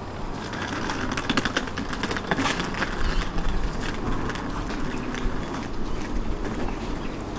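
Tram standing at a platform with a steady low hum. A run of sharp clattering clicks sounds from about a second in until past the middle, then eases off.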